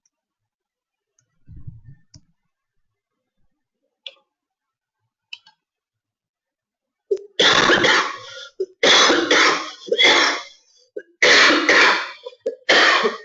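A person coughing hard into the microphone in four loud fits, starting about seven seconds in. Before that, a few faint clicks.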